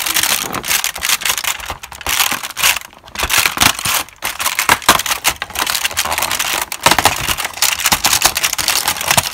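Fingers picking at and tearing open a cardboard door of a chocolate advent calendar, with crackling card and crinkling foil, close to the microphone.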